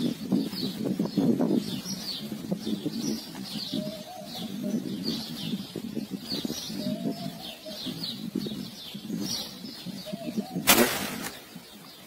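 Birds calling: doves cooing in low, repeated phrases while small birds chirp high and often. About ten and a half seconds in, a single sharp, loud burst cuts across them.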